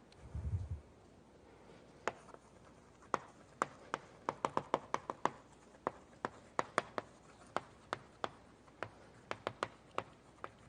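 Chalk on a board, making many sharp, irregular taps and clicks, some in quick runs, as diagrams are drawn. A short low thud comes about half a second in.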